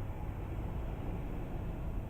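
Steady low rumble with a light hiss: airport background noise, with no single event standing out. A faint steady hum comes in near the end.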